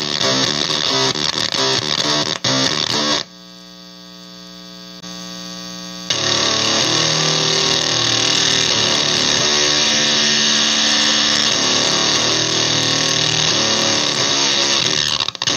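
Electric guitar in drop D through a Basic Audio Pendulum pedal in oscillation mode: first a staccato palm-muted riff with clicky artifacts, then a quieter steady buzzing tone for about three seconds. From about six seconds in, the pedal turns the sustained low notes into a loud, dense crackling chatter, its 'extreme crackling birds' setting.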